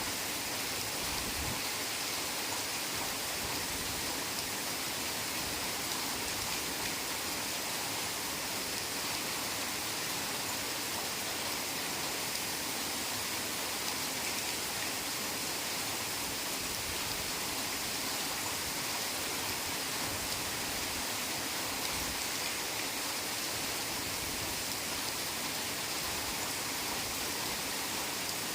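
Heavy rain falling steadily, an even, unbroken hiss with no single drops or thunder standing out.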